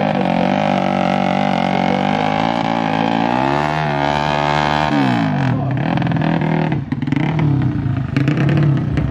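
Small-capacity fuel-injected drag bike engine revving: held at a steady high pitch, rising briefly and dropping back about five seconds in, then running unevenly with quick throttle blips.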